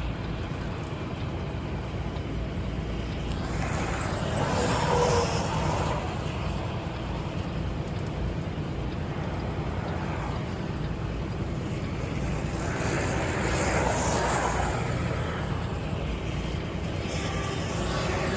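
Semi truck driving slowly, under 20 mph, heard from the cab: steady engine and road rumble that swells louder twice.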